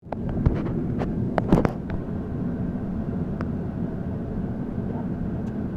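Steady low rumble of a moving vehicle, with several short clicks and one louder knock in the first two seconds.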